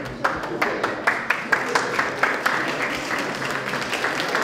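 Audience applauding, clapping together in an even rhythm of about four claps a second.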